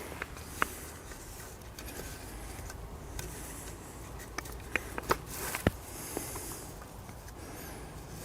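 A carbon climbing stick's rope being wrapped and cinched around a tree trunk: faint scraping and rustling with a few light, sharp clicks, several of them close together about five seconds in.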